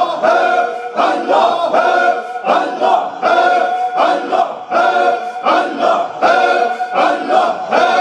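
A group of men chanting dhikr in unison, in a rhythmic, repeated phrase at about one chant a second.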